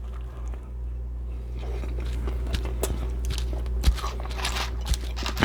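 Close-miked eating: a person biting and chewing food, with irregular crunchy clicks and mouth noises, over a steady low hum.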